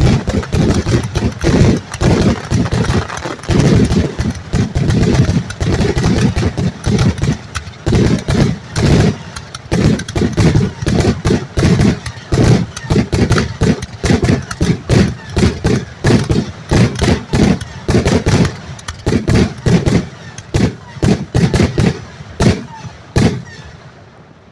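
Fireworks grand-finale barrage bursting directly overhead: a loud, unbroken run of booms and cracks, several a second, with a rumble between them. It thins out to scattered bangs in the last few seconds and stops just before the end.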